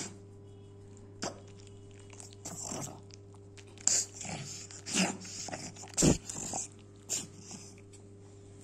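Pug puppy making short vocal sounds, about six scattered ones, while its ear is held and handled; the loudest comes a little after six seconds in.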